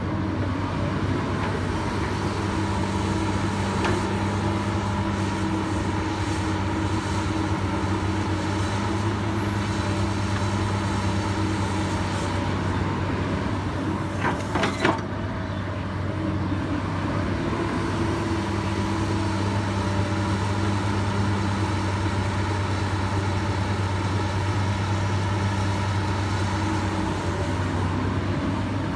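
Komatsu PC200 hydraulic excavator's diesel engine running steadily. A hum from the working hydraulics rises over it for two long stretches as the arm and bucket dig mud. There are a few sharp knocks about halfway through.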